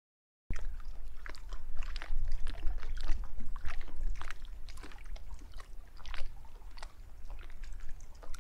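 Wind buffeting the microphone in a steady low rumble, with small waves slapping and splashing irregularly against a stone quay wall; it starts suddenly about half a second in.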